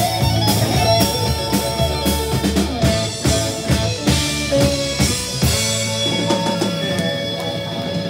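Live band playing a rock number with electric guitar and drum kit; the drum hits thin out near the end.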